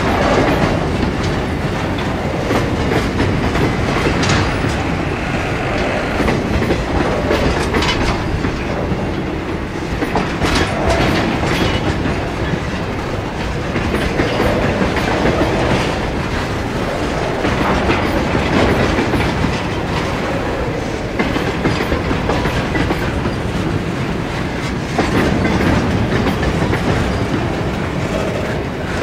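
A train of grain hopper wagons rolling past: a steady rumble of wheels on rail with recurring clacks as the wheelsets go over the rail joints.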